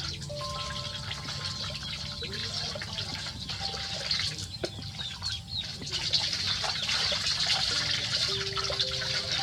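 Water running and trickling, over a steady low hum, with a few faint held tones that change pitch now and then.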